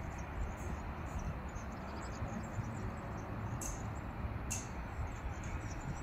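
Wind rumbling on the microphone over a steady outdoor hiss, with two brief high chirps a little after the middle.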